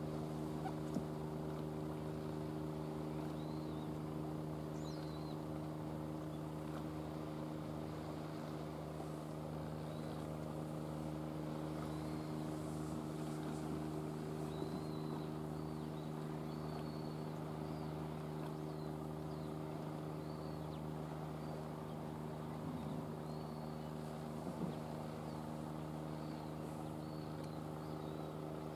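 Boat engine idling with a steady, even hum, with faint high chirps now and then.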